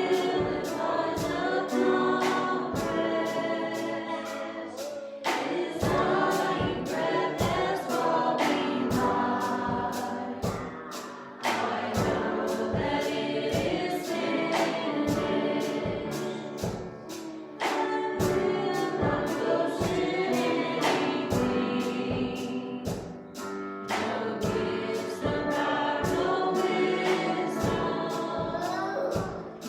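Church worship song: several voices singing together over instrumental accompaniment, with a steady beat of about two strokes a second.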